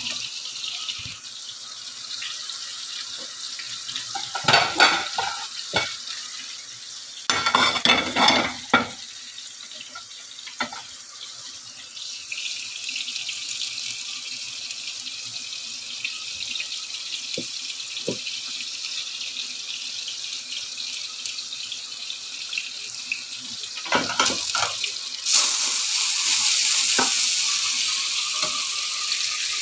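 Kitchen cooking sounds: a steady hiss that gets louder about three-quarters of the way through, broken by several short bursts of clattering from cookware and a plate.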